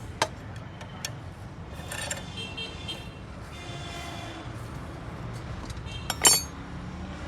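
Metal tools and engine parts clinking during engine disassembly, with one sharp metallic clank about six seconds in, over a steady low hum.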